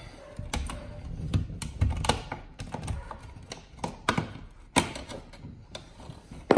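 Irregular clicks and taps of a screwdriver and hands working the screws and plastic wall plate off an electrical outlet, with one sharper knock about five seconds in.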